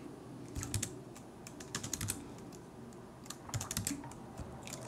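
Typing on a laptop keyboard: short runs of key clicks in several bursts, with pauses between them.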